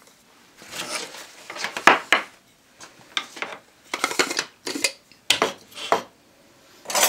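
Kitchen items being handled: a series of about nine short clinks and clatters, the loudest about two seconds in.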